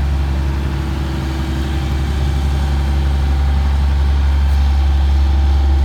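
Hitachi ZX200LC excavator's diesel engine idling steadily with a deep, even drone.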